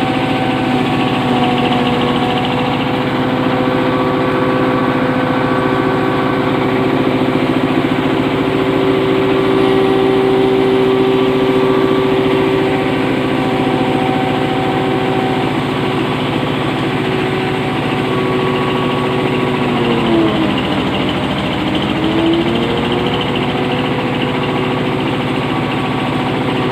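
Double-screen water-drop hammer mill feed grinder running at speed, a loud steady mechanical hum. About twenty seconds in its pitch sags for a couple of seconds, then comes back up.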